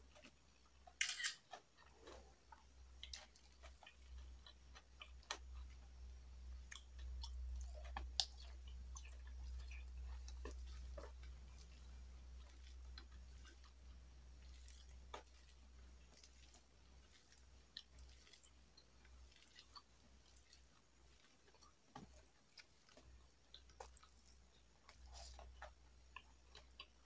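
Close-up eating sounds: quiet chewing with scattered crunches and mouth clicks, over a low steady hum.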